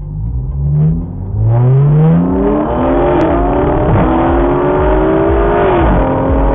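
Tuned supercharged V6 of an Audi S4 with race pipes and a deleted rear muffler, heard from inside the cabin, accelerating hard from about a second and a half in. The pitch climbs, drops at an upshift, climbs again more slowly, and drops at a second upshift near the end.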